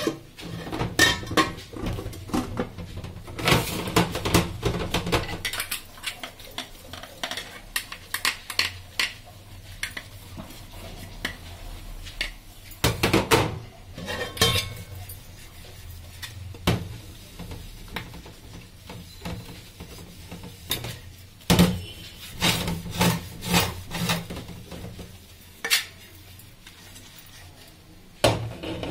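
A metal cooking pot and its lid being scrubbed and handled in a stainless steel sink: scrubber scraping over the metal, with repeated clinks and clanks of metal on metal and a few louder knocks, one about halfway through and another about two-thirds through.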